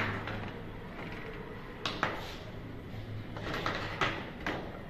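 Plastic laptop casing parts and a bare laptop motherboard being handled on a table: about six scattered clicks and knocks, over a steady low hum.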